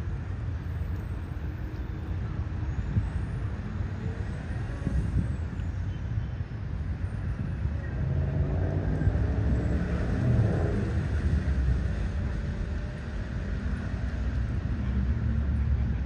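Steady low rumble of background traffic, which swells for a few seconds about eight seconds in.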